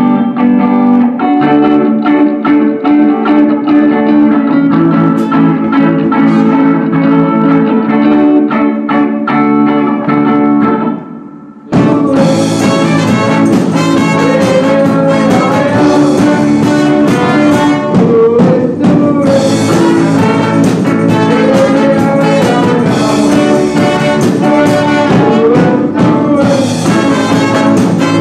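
A live rock band playing, with electric guitar, bass, drums and keyboard. About eleven seconds in the music fades out and cuts abruptly to brighter, fuller music with a brass-like lead and a steady beat.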